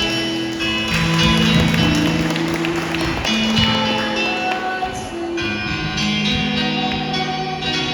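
Music: a guitar-accompanied serenade with long held notes over a strummed accompaniment.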